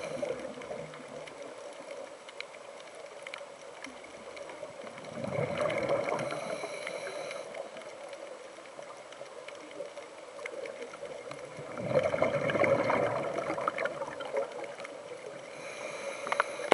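Scuba regulator exhaust bubbles gurgling underwater, swelling twice, about six seconds apart, with a quieter hiss and faint clicks between.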